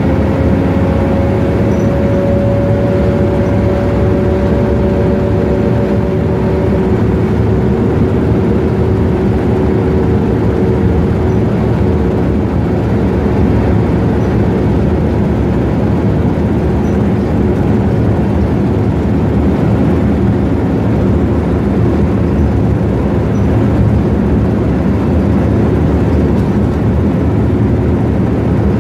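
BMC Belde 220-CB bus's Cummins C220-20 straight-six diesel running steadily. A thin whine rises slightly in pitch and drops out about a quarter of the way in, while a lower whine carries on.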